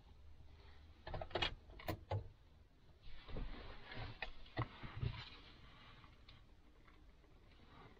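Scattered sharp clicks and knocks with rustling as parts are handled, in two clusters: one about a second in, another from about three to five seconds in. The rest is faint.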